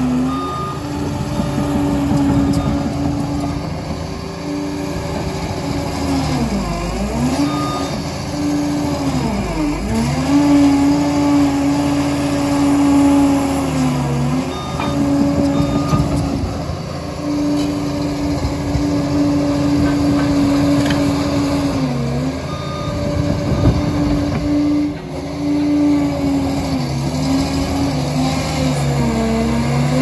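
Liebherr PR 746 crawler dozer working: its engine and hydrostatic drive run steadily, with the pitch dipping briefly several times under load. Clanking and knocking run through it.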